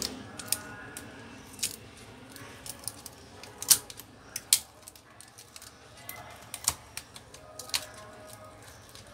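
Sharp, separate clicks and taps of small plastic and metal parts being handled inside an opened laptop, about seven in all, the loudest two near the middle.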